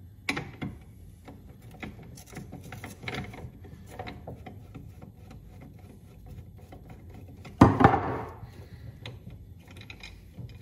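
Small metal clicks and scrapes of a screwdriver and a 10 mm wrench working the bolts that hold the rubber auger paddles of a Honda HS520 snowblower, with one louder clunk about three-quarters of the way through.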